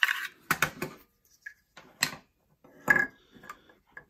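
Hard plastic parts of a tablet holder clacking and knocking as they are handled and set down on a wooden tabletop: a few separate clacks, the loudest about three seconds in.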